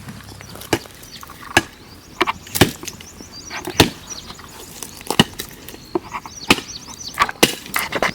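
Wood snapping and knocking in sharp, separate cracks, about ten of them at uneven intervals of roughly a second.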